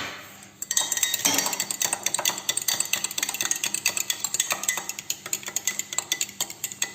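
A utensil beating a runny egg, oil, milk and vanilla mixture, with rapid clinking strokes against the container. One sharp knock comes at the start, and the beating runs from just under a second in until near the end.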